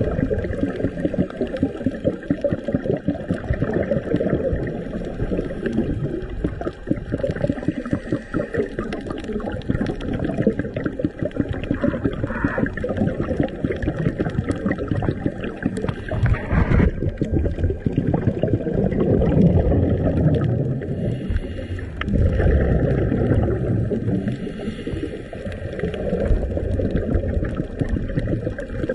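Underwater sound picked up through a dive camera's housing: a dense, low crackling rumble of water and the scuba diver's exhaled bubbles, gurgling in a few slow surges.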